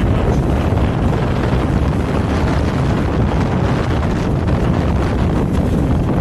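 Wind buffeting the microphone on a moving Benelli TRK 502X motorcycle, a steady rumble with the parallel-twin engine and road noise blended underneath.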